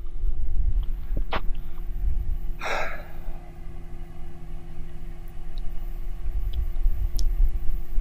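A person's heavy sigh, one breathy exhale about three seconds in, over a steady low rumble and faint hum.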